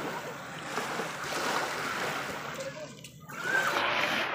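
Small sea waves lapping and washing over a pebble shore in the shallows, a steady rushing wash that drops briefly about three seconds in before swelling again.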